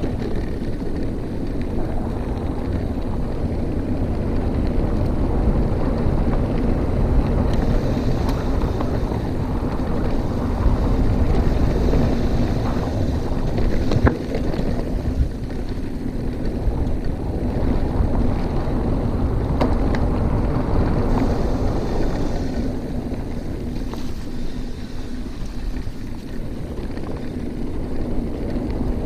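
Mountain bike rolling along a dirt trail, with wind rumbling on a GoPro's microphone. The tyre and drivetrain noise runs steadily, with a few sharp knocks from the bike over bumps.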